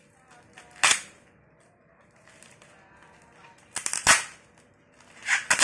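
Packaging being torn open: sharp snapping rips, once about a second in, a quick cluster near four seconds, and again near the end.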